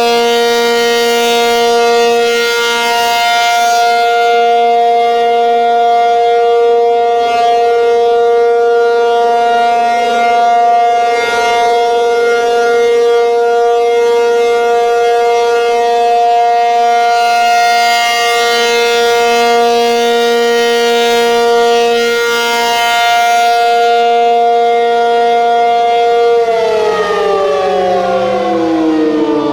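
Outdoor storm warning siren sounding a loud steady tone for a test, its brightness swelling and fading every several seconds. About three seconds before the end it begins winding down, the pitch sliding steadily lower.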